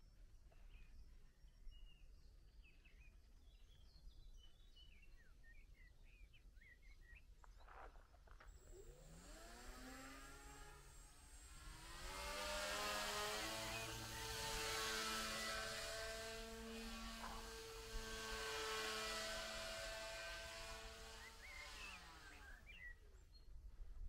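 The RC paraglider's motor and propeller running up in pitch, holding a steady buzzing drone for about ten seconds, then winding down near the end. Faint bird chirps are heard before it starts.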